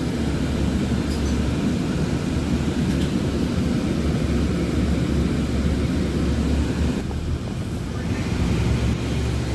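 Nova Bus LFS city bus in motion, heard from inside: a steady low engine and drivetrain rumble that eases briefly about seven seconds in, then builds again.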